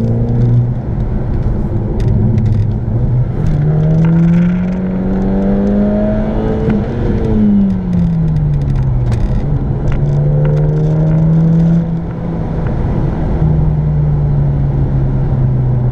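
Volkswagen GTI's turbocharged four-cylinder engine heard from inside the cabin through a new 3-inch Megan Racing catback exhaust while driving. Its deep drone climbs in pitch under acceleration, drops sharply about seven seconds in, then holds steady.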